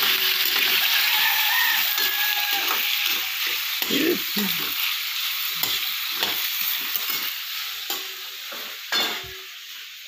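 Food sizzling and frying in a metal wok while a metal spatula stirs it, with irregular scrapes and knocks of the spatula against the pan. The sizzle is loudest at first and dies down in the second half.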